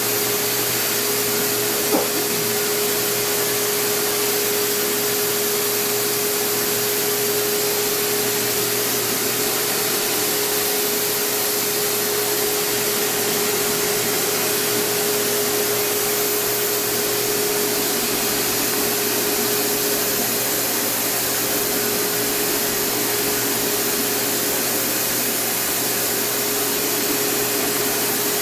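Steady drone of an electric blower motor moving air, with a constant hum tone through it and one brief click about two seconds in.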